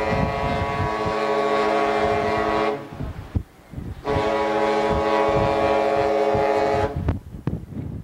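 The SS Emerald Seas' horn sounding two long, steady blasts of about three seconds each, a little over a second apart, with several tones sounding together in a chord.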